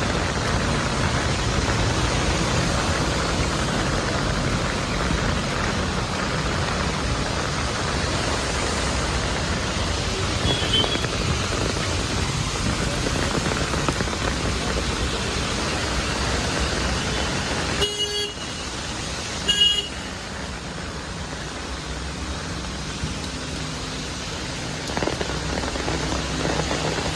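Steady street noise of rain and passing traffic, with a car horn giving two short toots about two-thirds of the way through.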